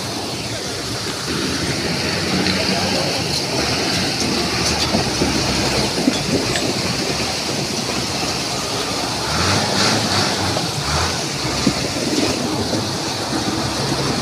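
Muddy floodwater rushing fast across a road in a steady wash of noise, with a heavy truck's engine running as it drives through the flow, loudest around ten seconds in.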